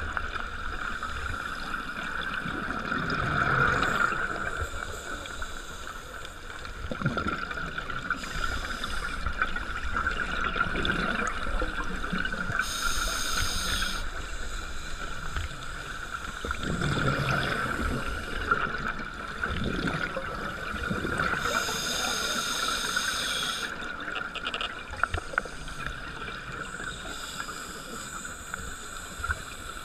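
Underwater sound picked up by a diver's camera: a steady hiss and low rumble, with swells of scuba exhaust bubbles gurgling past now and then and two short hisses from a regulator.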